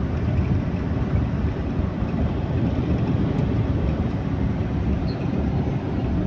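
Coach bus driving at speed on a highway, heard from inside the passenger cabin: a steady low rumble of engine and road noise.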